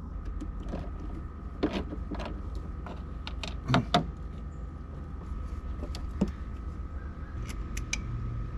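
Hand tools and fasteners clicking and clinking against metal in a car's engine bay while engine ground cables are unbolted. The strikes are short and scattered, the loudest two close together about four seconds in, over a steady low hum.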